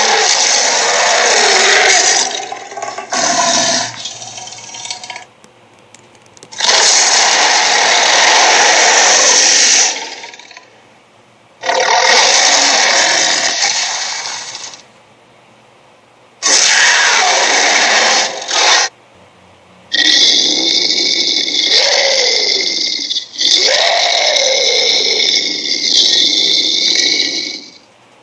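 A string of harsh, noisy cartoon monster sound effects for the creature Squidapus, six separate blasts each a few seconds long with short pauses between. The last two carry a growl that slides down and back up in pitch.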